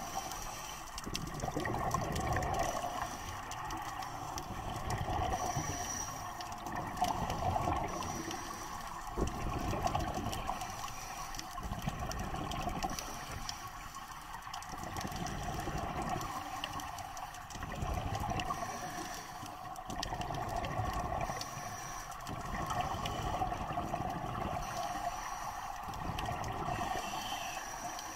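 Underwater sound of scuba breathing: bubbly gurgling surges from the diver's regulator exhaust every few seconds, over a steady hum.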